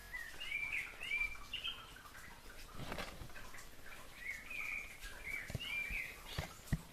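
A songbird singing in two short warbling phrases, a couple of seconds apart. A few dull knocks near the end.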